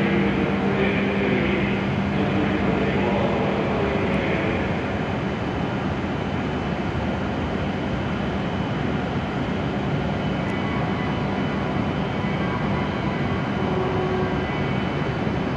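W7 series Shinkansen standing at the platform with its onboard equipment running: a steady whirring hum. A low tone in it fades about four seconds in.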